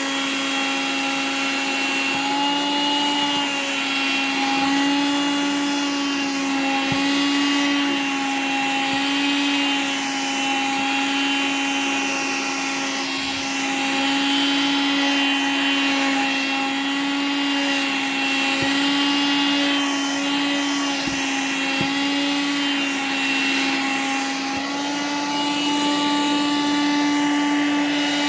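Vacuum cleaner running steadily while sucking on nylon cargo pants and a knit top, its motor hum dipping and rising slightly in pitch as the fabric is drawn against the nozzle, with a few faint ticks.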